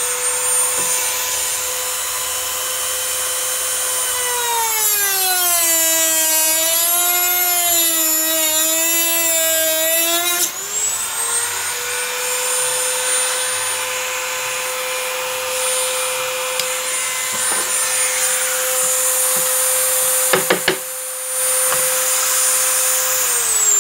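Dremel rotary tool with a cut-off wheel whining at high speed while cutting PVC pipe. A few seconds in, its pitch drops and wavers for several seconds as the wheel bites into the plastic, then rises back to full speed. Near the end the motor is switched off and winds down in a falling whine.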